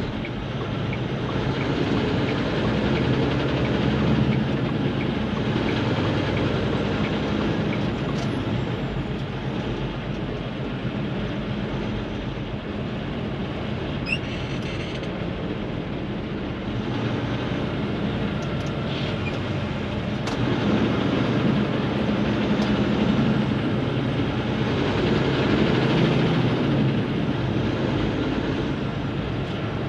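Steady driving noise heard from inside a vehicle's cabin at freeway speed: engine and tyre rumble, swelling a little louder for a few seconds at a time.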